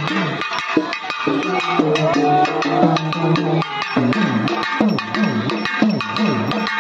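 Festival folk drumming: fast stick strokes on a hand drum under a melody that bends in pitch. About four seconds in, a low tone starts swooping down and back up about twice a second.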